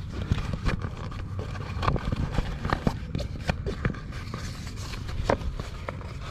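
Footsteps on grass with scattered sharp clicks and knocks of loose stones at a gravel pool edge, over a steady low rumble.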